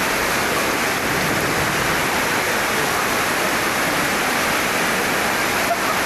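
Loud, steady rushing of water: floodwater after a heavy downpour, an even noise with no breaks.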